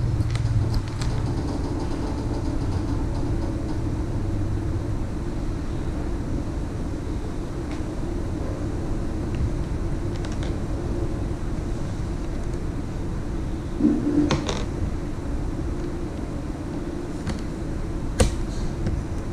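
A steady low mechanical hum, with a few short sharp clicks, the clearest about two thirds of the way through and near the end.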